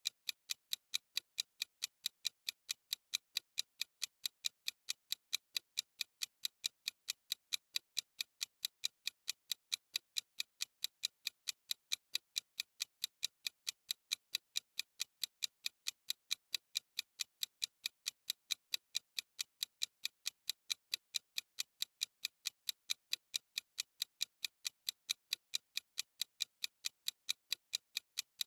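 Clock-ticking sound effect of a countdown timer: short, sharp, high-pitched ticks at a quick, perfectly even rate, with silence between them.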